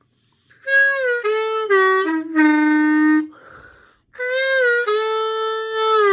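Diatonic harmonica played in single notes: a short phrase stepping down through four or five notes and ending on a long held low note, then the same phrase again about four seconds in.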